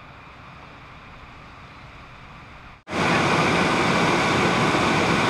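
Faint steady background noise, then about three seconds in a sudden jump to the loud, steady running of a fire engine parked with a hose line connected at its pump panel.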